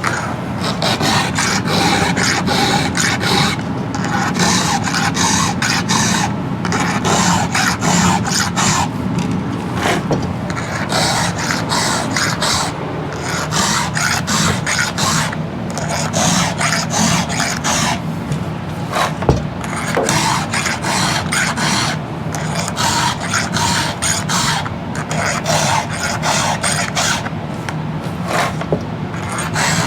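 Hand file rasping across the cutters of a chainsaw chain in short repeated strokes with brief pauses between them, sharpening the teeth on the second side of the chain. The chain is only lightly dull, needing a stroke or two per tooth.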